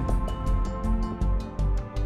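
Background music with a steady beat: a deep bass pulse about twice a second under sustained pitched notes.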